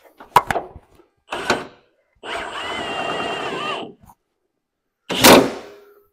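Cordless impact tool running steadily for just under two seconds, with a whine, as it snugs down a cab body-mount bolt. Before it come a few short clicks and a clatter of handling, and near the end a single sharp clank is the loudest sound.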